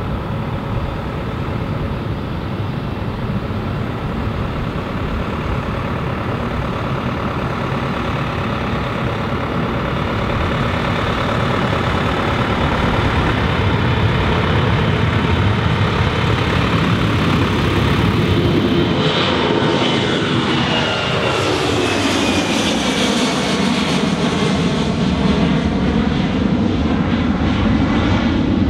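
Boeing 757 freighter's twin jet engines at takeoff power, a loud steady rumble that grows louder through the takeoff roll and liftoff. In the last third a whine sweeps steadily down in pitch.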